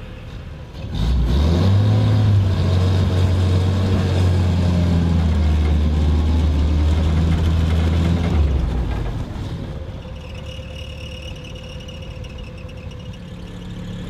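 Willys Jeep engine revving as it pulls away about a second in, then running steadily at about 15 mph. About eight seconds in the engine note falls away as the Jeep brakes hard to a stop, leaving it idling more quietly.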